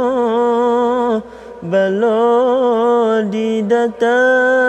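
A single voice chanting a Malay maulid verse in long, ornamented held notes with no instruments. It breaks off for a breath about a second in, and briefly again twice later on.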